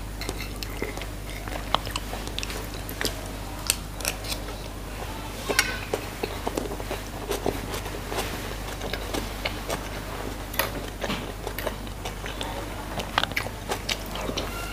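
Close-up chewing and wet mouth sounds of a person eating rice and beef soup, with many short, sharp clicks and smacks scattered throughout.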